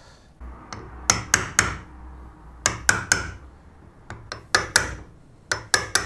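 Hammer striking a wood chisel, chopping a series of cuts into the timber of a door edge to cut out a hinge recess. The sharp blows come in quick runs of three, about four runs with short pauses between.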